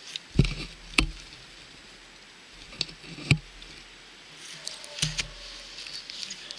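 Several sharp knocks and thumps at irregular intervals, with light rustling between them.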